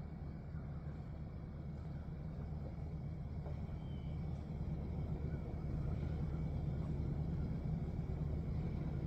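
A motor vehicle's engine running steadily with a low rumble, growing a little louder toward the end.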